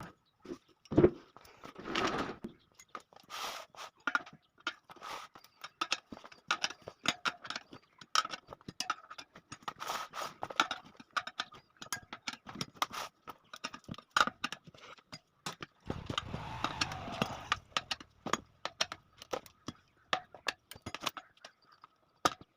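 A motorcycle tyre and inner tube being worked by hand onto a spoked rear rim: irregular clicks, knocks and rubbing of rubber and metal, with a longer rough scraping stretch about sixteen seconds in.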